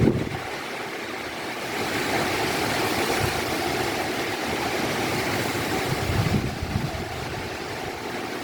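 Gusty wind blowing through a garden: a steady rushing that swells about two seconds in. Low rumbles of wind buffeting the microphone come near the start and again about six seconds in.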